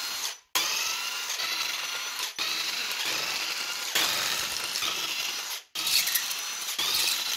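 Cordless power tool driving a socket on a long extension, spinning out the cylinder head bolts of a Mercedes M271 four-cylinder engine. It runs in several spells of one to three seconds with short stops between them.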